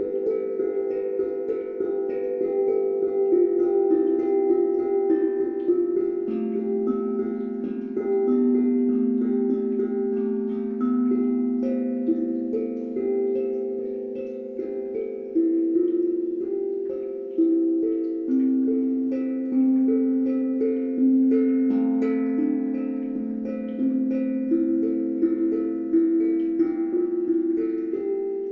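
Slow, calm instrumental music: single melodic notes, plucked or struck every second or two, each ringing on and fading into the next, with no bass.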